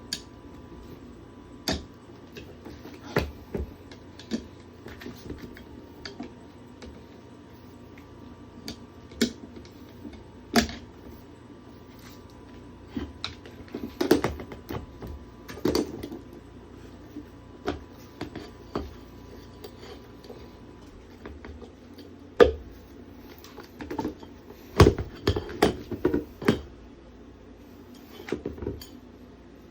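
Tyre levers clicking and knocking against a scooter wheel rim as an 11-inch tubeless tyre is levered over the rim. The knocks are scattered and irregular and come thicker and louder near the end, over a faint steady hum.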